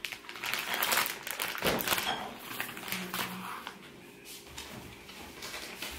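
Scattered light clicks, taps and rustling from things being handled, busiest in the first few seconds and thinning out after.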